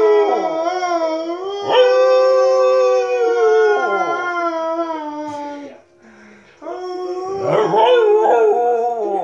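A dog howling with its muzzle raised while a person howls along with it, two voices holding long wavering notes together. Both break off briefly about six seconds in, then start again.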